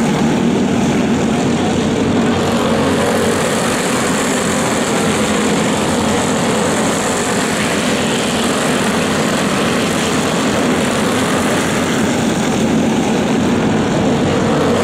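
Racing kart engines running at speed on track, a loud, steady, dense drone.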